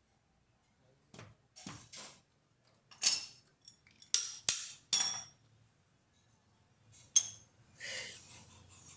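Metal tools or parts knocking and clinking: about nine separate sharp metallic clanks with a bright ringing tone, the loudest clustered around three to five seconds in and another near seven seconds.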